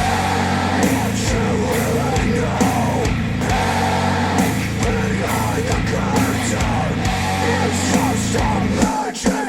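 Heavy rock music played back through Focal Chora 806 bookshelf speakers driven by a NAD C 338 integrated amplifier. The bass drops out briefly near the end.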